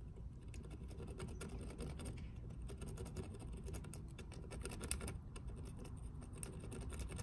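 Tip of a Dupli-Color touch-up paint pen dabbing and scraping along the curb-rashed edge of an alloy wheel rim: a faint, quick, irregular run of small scratchy ticks, a nails-on-a-chalkboard kind of sound.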